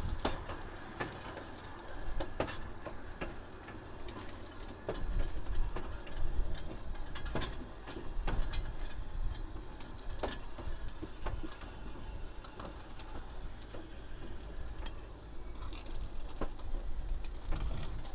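Work train's wheels rolling over old jointed track: a steady low rumble with irregular sharp clicks and clunks as the wheels cross rail joints.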